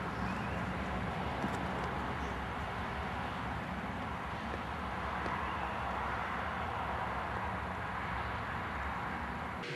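Steady outdoor background noise: an even hiss with a low rumble and no distinct events.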